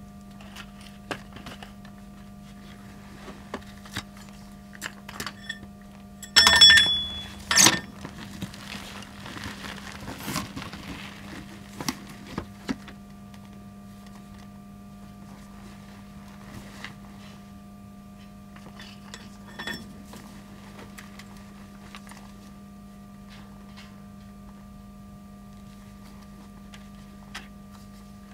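Steel parts and welding gear being handled against a steel loader bucket: scattered light clinks and two ringing metal clanks, about six and a half and seven and a half seconds in, over a steady low hum.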